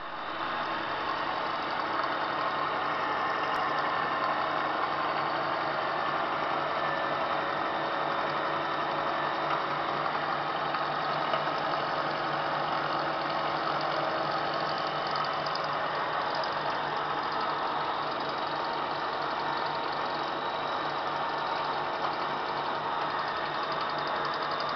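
Vertical milling machine running steadily, its end mill cutting a steel pipe: a constant low hum under a dense, even cutting hiss.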